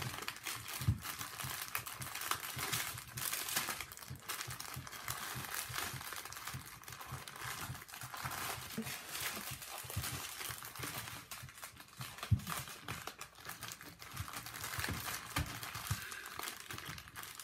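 Plastic bags of diamond-painting drills crinkling as they are handled and sorted by hand, with a few soft knocks among the rustling.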